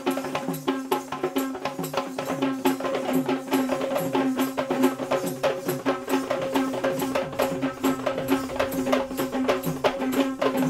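Kandyan dance music: dense, rapid drum strokes and sharp clicks over a steady held note.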